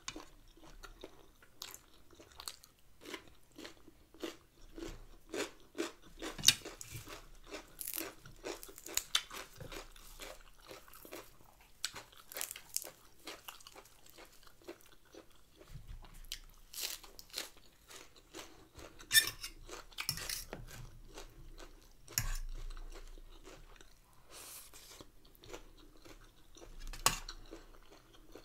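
A person chewing and crunching a mouthful of stir-fried chicken gizzards with rice and fresh herbs, up close: an irregular run of crackly chewing sounds with a few sharper, louder crunches.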